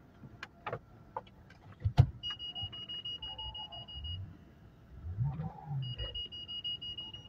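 Electronic beeping: two long steady high tones, each about two seconds, the first starting about two seconds in and the second near the end. Before them come a few light clicks and knocks, the sharpest just before the first tone.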